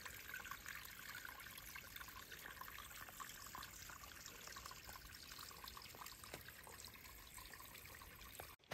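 Small creek trickling faintly and steadily over rocks; the sound cuts off abruptly just before the end.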